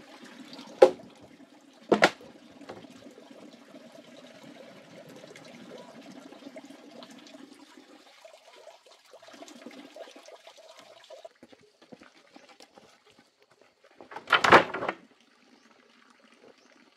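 A heavy wooden log dropped from the shoulder onto a pile of logs: a loud thud about a second in and a second knock a second later. Near the end comes another loud, rough burst lasting about a second.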